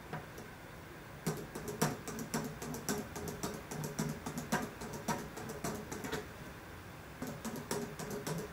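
Plastic LEGO Technic gears clicking and clattering against LEGO gear racks as a small weighted toy rolls and tips its way down the sloped track. The clicks start about a second in and run on as a fast, uneven series.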